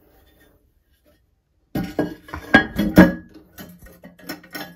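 Porcelain toilet tank lid being set onto the tank and shifted against the sprayer holder, clinking and knocking with a short ring, starting nearly two seconds in. The two loudest knocks come close together near the middle.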